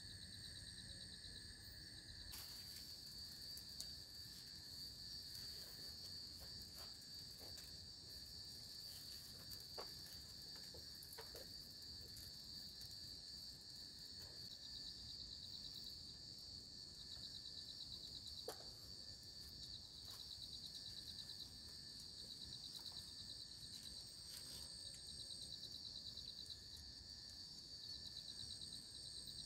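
Faint, steady chorus of night insects trilling in tropical forest, a continuous high-pitched ringing drone. A few faint crackles of the campfire burning.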